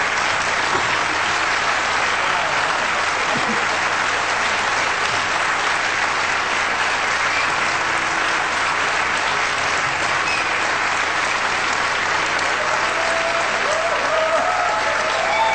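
Large audience applauding steadily, with some voices calling out in the crowd, more of them near the end.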